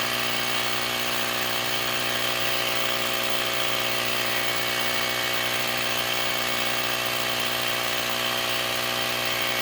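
Battery-powered portable tire inflator running with a steady, even hum, pumping up a flat four-wheeler tire toward its 20 psi auto shut-off setting.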